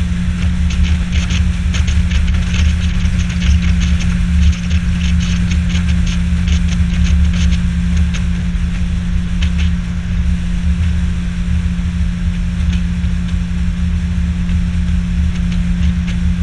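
Outboard motor of an aluminum fishing boat running at steady cruising speed, a constant low hum, with water splashing and slapping against the hull, busiest in the first half.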